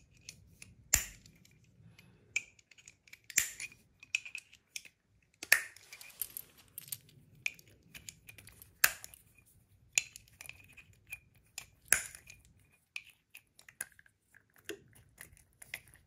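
Reloaded rounds in brass cases being snapped one by one into a moon clip on a handheld moon-clip loader: a series of sharp metallic snaps every second or two, with quieter clinks and ticks of brass between.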